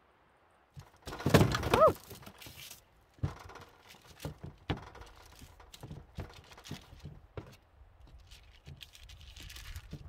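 Pierogi dough being cut into rounds on parchment paper with an upturned container. About a second in comes a loud burst of rubbing and paper noise with a short squeak. Scattered taps, knocks and crinkles of the paper follow as the rounds are pressed out and lifted.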